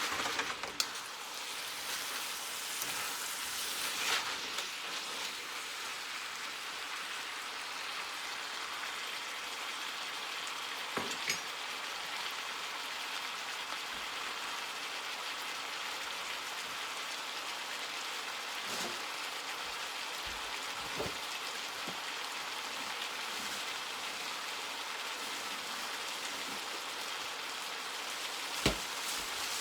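Chicken strips, sliced peppers and onions sizzling steadily in hot vegetable oil in a frying pan, with a few light knocks of a utensil against the pan.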